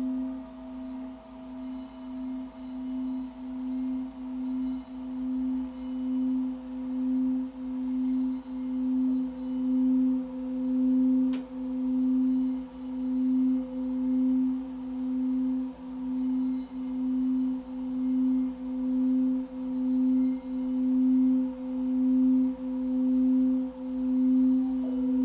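Small Tibetan singing bowl resting on a person's body, made to sing by a mallet circled around its rim. It gives one steady low hum with a fainter higher tone, throbbing in a regular pulse a little faster than once a second and growing louder after the first several seconds.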